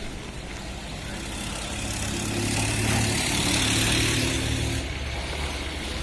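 A motor vehicle's engine running steadily, growing louder with rising road or tyre hiss over the first few seconds, then dropping off sharply about five seconds in.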